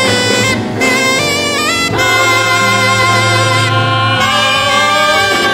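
Church musicians playing a slow hymn: long held notes with a reedy sax- or organ-like tone over a steady bass note, moving to a new chord about two seconds in.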